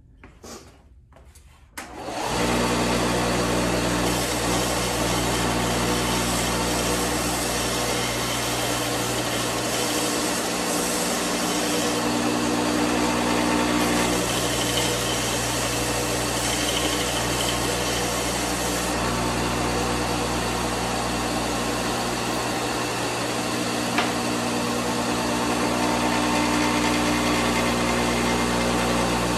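Small bench belt sander switched on about two seconds in and running steadily, sanding the wave-shaped profile into the wooden side walls of a scratch box turkey call.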